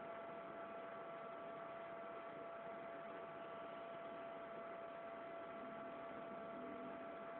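Faint steady electrical hum and hiss, with a thin constant whine over it: background noise only, with no separate event.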